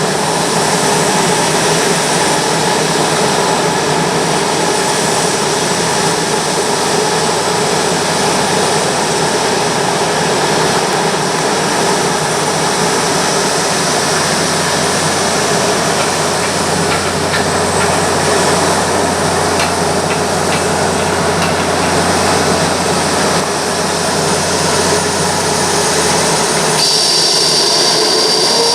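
Jet engines of a Boeing 787-9 airliner running, a loud, steady roar with faint whining tones in it. A new high whine comes in near the end.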